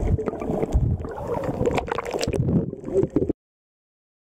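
Muffled sloshing and bubbling of water around a waterproof camera held half under the surface, with scattered sharp clicks. It cuts off abruptly a little over three seconds in.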